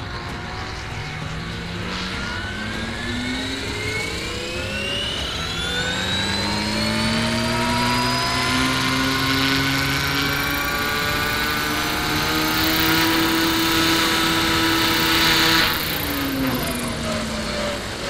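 Electric drive and rotors of a 1/5-scale Huey 1C RC helicopter spooling up with a rising whine, then running steadily with rotor noise. About 16 s in the power cuts out suddenly and the whine falls away as the rotor winds down: an electrical cutout in the flight power system.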